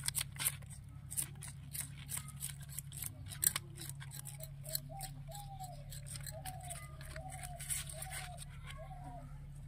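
Knife cutting and scraping in food preparation: a fast, irregular run of sharp clicks and scrapes. From about five seconds in, a string of about six short repeated calls sounds alongside.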